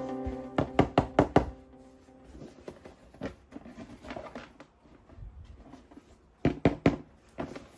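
Sharp clicks and knocks of hard toy parts being handled: a quick run of about five near the start, softer small handling sounds, then another cluster of three or four near the end.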